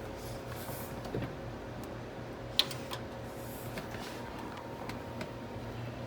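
Newly built desktop PC running just after power-on: a steady low fan hum with a few faint clicks and one sharp click about two and a half seconds in.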